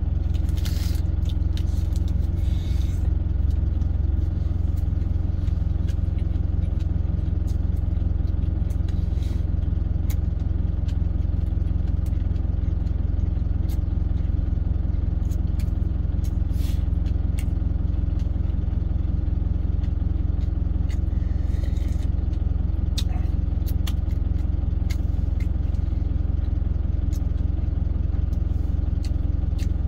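Steady low hum of a truck engine idling, heard from inside the cab. Now and then come short crinkles of a foil wrapper and small eating sounds.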